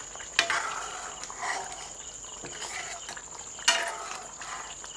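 A steel ladle stirring chicken curry in an iron kadhai: wet stirring through the gravy, with two sharp clinks of the ladle on the pan, about half a second in and a louder one just under four seconds in.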